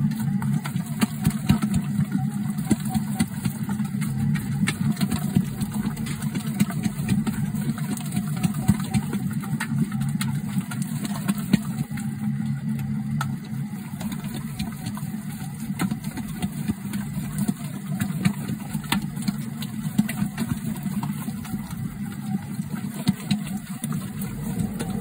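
Electric dough mixer kneading bread dough in a steel bowl as the dough comes together: a steady motor hum with frequent slaps and clicks of the dough against the bowl.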